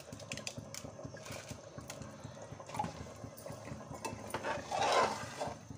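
Tomato-and-spice gravy simmering in an aluminium pressure cooker around a mound of freshly added rice, a steady patter of small bubbling pops. A louder swishing noise swells about five seconds in.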